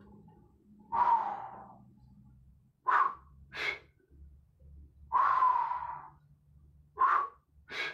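A man's hard, noisy breathing from the effort of lifting a weight: six sharp exhales and inhales about a second apart, two of them longer, at about a second in and five seconds in.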